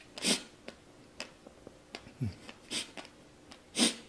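A man's sharp breaths puffed out through pursed lips, three times with small mouth clicks in between, the last the loudest: blowing to ease a mouth burning from the Paqui One Chip Challenge chili chip.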